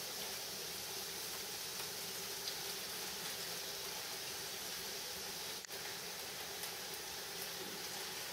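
Rice and diced bacon, carrots and spring onions sizzling steadily in oil in a frying pan over medium heat, with a brief click about five and a half seconds in.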